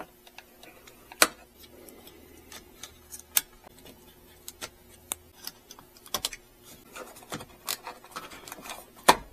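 Irregular sharp plastic clicks and taps of aftermarket gauge pods and their wiring being handled and fitted by hand.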